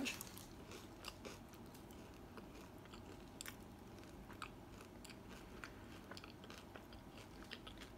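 Faint close-up chewing of a custard-filled croissant, with scattered small crackles from the flaky pastry.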